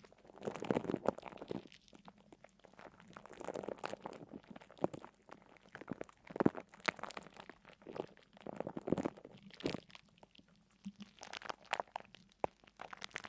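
Crunching and crackling in irregular bursts every second or two, made up of many sharp little clicks.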